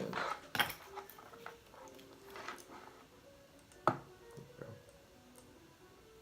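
A few light clicks and taps of small tools and connector parts being handled on a workbench, the sharpest about four seconds in.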